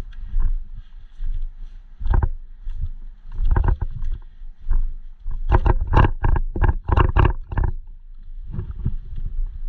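A quick run of sharp knocks, about four to five a second, over a steady low rumble of movement and handling noise.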